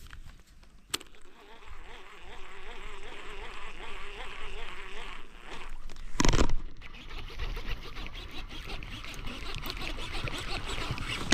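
An insect buzzing close by, a wavering drone lasting a few seconds. About six seconds in comes a brief loud rushing noise, followed by a dense fine crackle.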